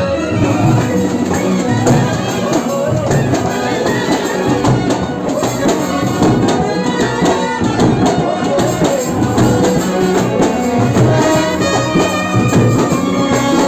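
Street brass band playing: a large two-headed bass drum beaten by hand and trumpets, with a steady run of percussion strokes.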